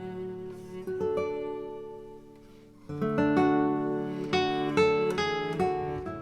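Background acoustic guitar music of picked notes and chords. It fades to a lull about two and a half seconds in, then comes back fuller.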